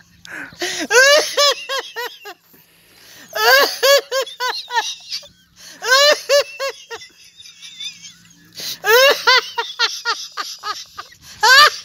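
A man laughing loudly and hard in repeated bouts of rapid, high-pitched 'ha' syllables, about five bouts a couple of seconds apart, with breathy pauses between them.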